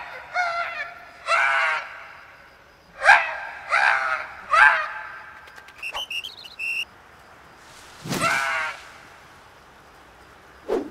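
Squeaky, chirping vocal calls of cartoon insect characters (ants and a ladybug), several short bending cries in a row. A quick run of high pips comes about six seconds in, then one more call a couple of seconds later.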